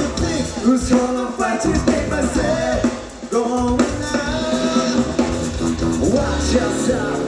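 Live rock band playing: electric guitar, bass and drum kit with a singer's voice over them, dipping briefly in loudness about three seconds in.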